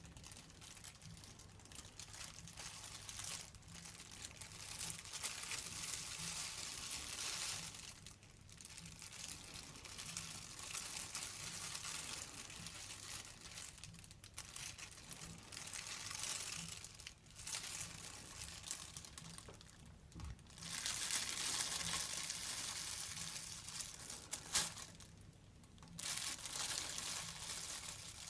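Clear plastic shower cap crinkling and rustling as fingers rub, crumple and pull at it, in stretches of a few seconds with short pauses between.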